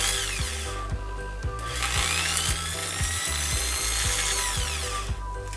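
Bosch GSB 13 RE 650 W corded impact drill running with no load in plain drill mode. A first run winds down just after the start; then, about one and a half seconds in, the drill speeds up to a high whine, holds, and winds down near the end. Background music with a steady beat plays underneath.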